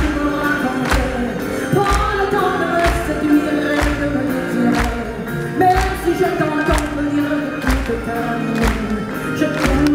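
A woman singing live into a microphone over band accompaniment that includes piano, with a steady beat about once a second.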